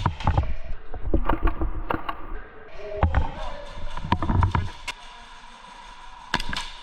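Airsoft guns firing in close-quarters play: irregular sharp snaps and clacks, some in quick runs, with a couple of shots near the end.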